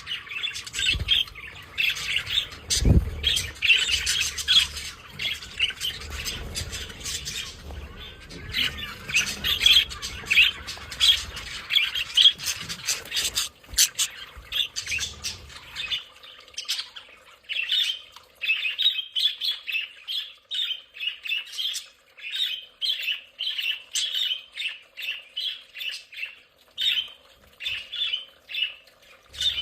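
A budgerigar flock chattering: many overlapping chirps and squawks, dense in the first half. From about halfway a run of quick repeated chirps takes over, a few each second.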